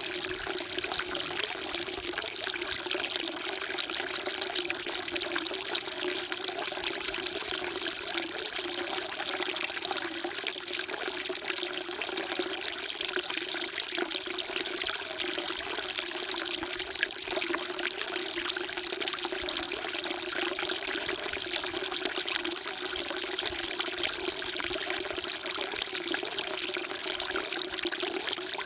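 Water falling in a steady, unbroken stream and splashing into water, the running sound of a temple's stone water trough.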